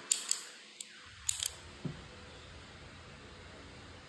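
A few short, sharp clicks from handling the parts of a gas blowback airsoft rifle: two near the start, a quick cluster about a second and a half in, then a soft knock.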